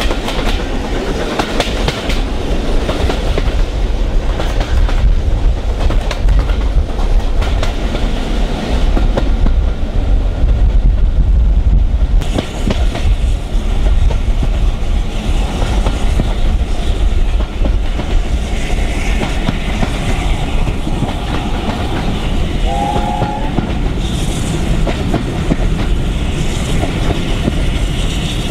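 Steam-hauled passenger train heard from a carriage window, with the wheels clattering over the rail joints and the two Pacific steam locomotives, 60007 Sir Nigel Gresley (an LNER A4) and 70000 Britannia, working ahead under a heavy rumble. A brief tone sounds about three-quarters of the way through.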